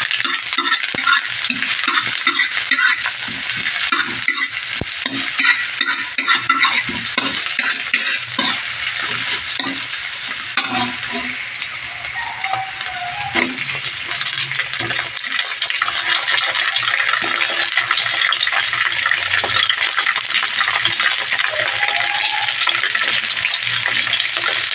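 Sliced onions and chopped garlic sizzling in hot oil in a metal pan, with a metal spatula scraping and stirring across the pan's surface. The sizzle is a steady hiss, broken by many small scrapes and taps.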